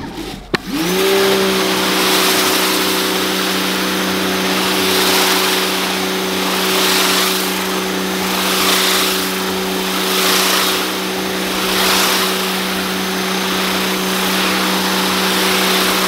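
Pressure washer running with a steady motor hum, its Ryobi surface cleaner attachment spraying water onto concrete. The hum dips out at the very start and spins back up about a second in, and the spray hiss swells and fades about every two seconds as the cleaner is swept back and forth.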